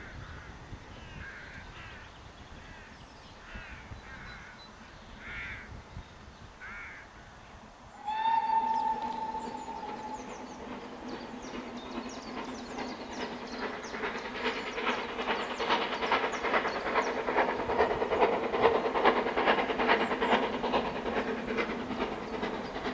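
A bird calls several times over quiet background. Then a steam locomotive's whistle sounds once for about two seconds, and the locomotive approaches working hard, its rapid exhaust beats and the train's running noise growing steadily louder.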